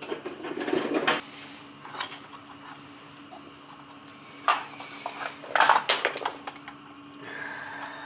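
Metal clinks and rattles of tools and parts being handled at an oil burner's control wiring, in several short clusters, over a faint steady hum. This is the work of changing out the burner's primary control, which the technician takes to be bad because the burner fires but won't stay on.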